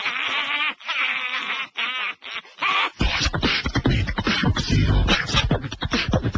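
A person beatboxing: a fast rhythm of mouth clicks and hissing snares over deep bass thumps, starting about three seconds in. Before that, high-pitched wavering cries.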